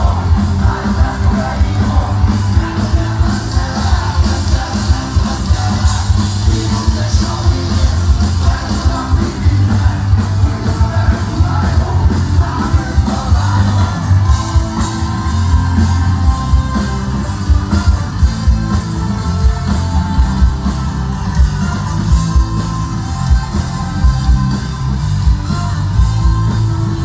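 Live rock band playing loud through a PA system, with a strong steady beat, heavy bass and singing, heard from within the crowd.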